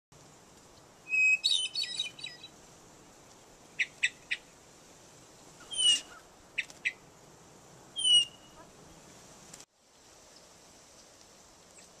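Small songbird held in the hand, calling: a burst of scratchy chattering calls about a second in, then scattered sharp chip notes and a few high notes that slide downward.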